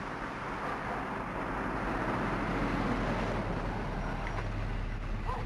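A car driving up a street and pulling in to stop at the curb: steady engine and tyre noise that swells about two seconds in and eases as the car slows.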